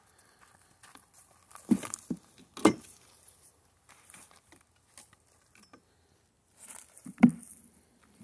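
Long-handled plastic scoop pan and rake knocking and scraping as a load of manure is tipped into a cart: a few sharp knocks about two seconds in, soft scraping and rustling, then one louder knock near the end.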